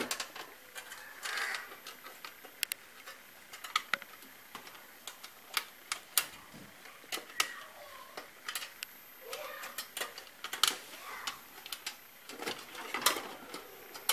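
A screwdriver turning a screw into a computer case's sheet-steel drive bay to hold a disc drive in place: irregular small clicks and light metal taps.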